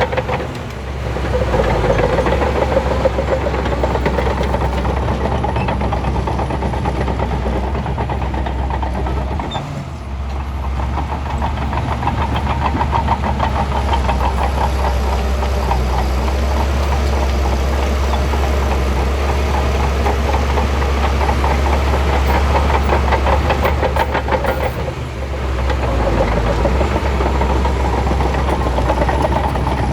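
Shantui bulldozer's diesel engine running steadily under work, its level dipping briefly three times, about a second in, near the middle and near the end.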